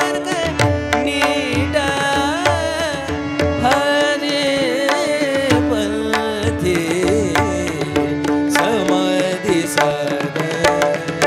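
Marathi devotional abhang music: a gliding melodic line over a steady hand-drum rhythm.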